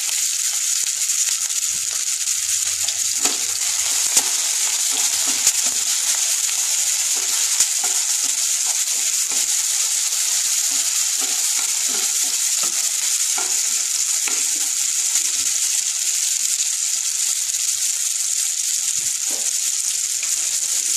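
Chopped onions sizzling in hot oil in a non-stick kadai: a steady, even high hiss. Light scrapes and taps of a wooden spatula stirring them come through at scattered moments.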